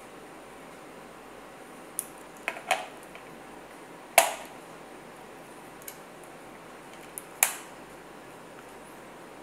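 A handful of sharp plastic clicks and knocks as a three-pin plug is handled and pushed into a power-strip socket. The loudest snap comes about four seconds in, with another strong click near the end.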